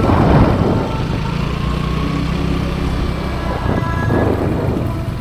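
A motor vehicle's engine running steadily, with louder rushes of noise near the start and again about four seconds in.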